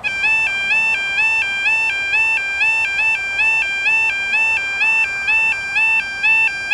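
Level crossing warning alarm: an electronic two-tone yodel alternating between a low and a high pitch a little over twice a second. It starts suddenly as the crossing's warning sequence begins, signalling that a train is approaching.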